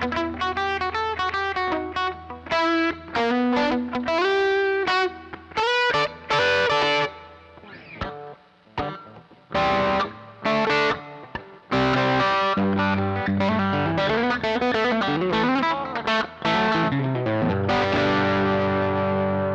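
Electric guitar with P90 pickups, a Reverend Pete Anderson PA-1, played through a Laney Lionheart L5 Studio tube amp and recorded from the amp's direct output, with a little overdrive. Quick single-note runs and short stabs come first, then about twelve seconds in a chord is strummed and left to ring.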